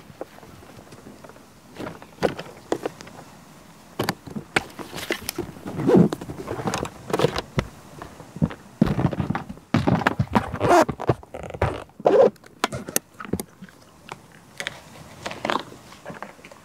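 A run of irregular knocks, thunks and scrapes, things being handled and bumped, busiest in the middle stretch.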